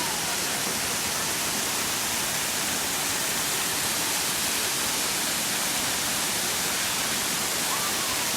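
Waterfall roaring steadily: an unbroken, even rush of falling water.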